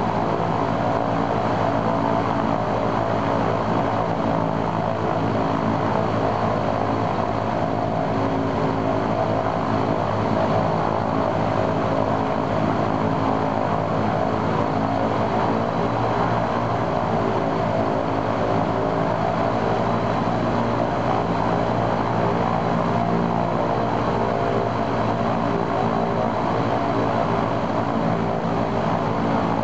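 Il-14's right Shvetsov ASh-82T radial piston engine and propeller running at a steady speed in a ground run-up, testing the engine after its oil cooler was replaced.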